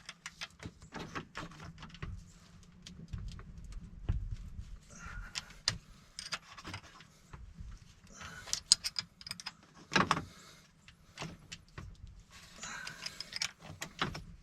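Hand wrench working at the 10 mm nut on a UTV's shift-selector gear: irregular metallic clicks and clinks of the tool against the nut and housing, some coming in quick clusters.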